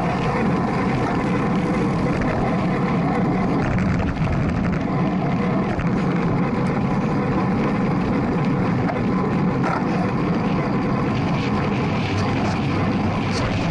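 Steady rush of wind and road noise picked up by a camera mounted on a road bike's handlebars while riding at race speed, about 17 to 25 mph.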